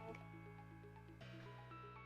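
Faint background music with steady held notes, the chord changing a little past a second in.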